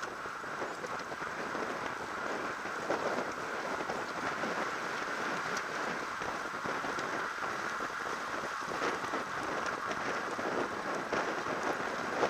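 Wind rushing and buffeting on a bike-mounted action camera's microphone while riding at race speed in a bunch of road bikes, with tyre noise from the tarmac under it.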